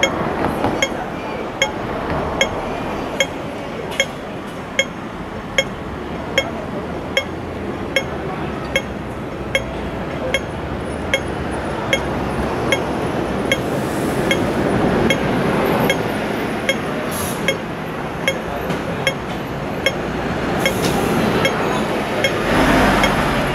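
A regular metallic ticking, one sharp tick about every 0.8 seconds, over steady street noise and distant voices. The street noise swells near the end.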